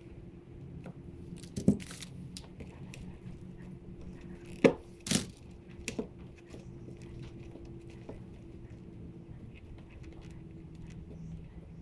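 Small handling noises from wiring work, with a few sharp clicks and taps, over a steady low hum.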